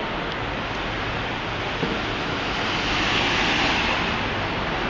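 Steady rushing noise of city street traffic, swelling slightly about three seconds in as a vehicle passes.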